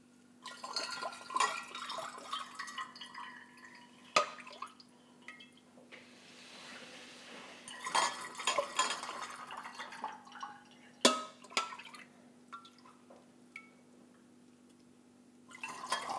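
Wort being poured through a glass funnel into a glass Erlenmeyer flask, splashing and trickling in uneven spells, with a few sharp clinks of a steel ladle against the glass.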